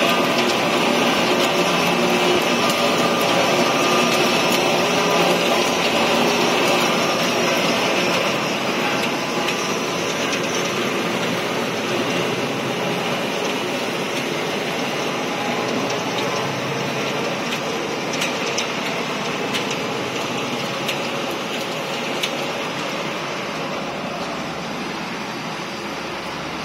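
Macaroni production line with a single-screw extruder running: a steady machine noise of motors, extruder and mesh conveyor, easing slightly after about eight seconds.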